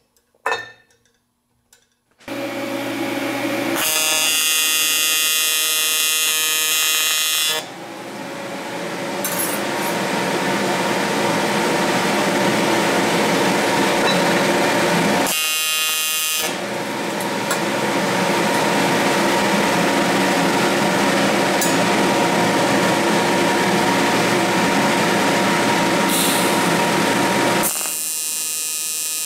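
TIG welder laying a test bead on a cast pot-metal bracket: the welder's cooling fans start up about two seconds in, and the arc buzzes steadily over them. Brighter, hissier stretches come around the arc starts.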